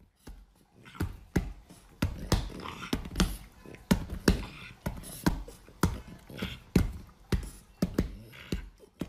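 Irregular soft thumps and taps, about one or two a second, as a French bulldog puppy pounces and scrabbles at a person's hand on a leather couch.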